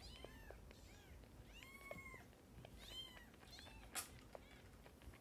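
Newborn kitten mewing at a milk bottle's teat during bottle-feeding: about four thin, high-pitched mews, rising then falling in pitch, in the first three seconds or so. A sharp faint click about four seconds in.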